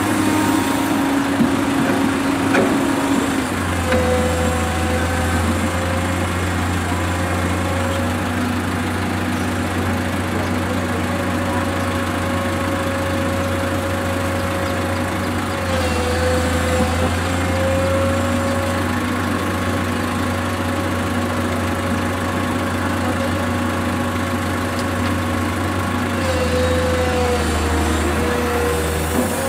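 Komatsu PC210 crawler excavator's diesel engine and hydraulics working steadily, with a low hum and a whining note. The engine note shifts and dips a few times, about four seconds in, midway and near the end, as the machine takes load while swinging and dumping sand.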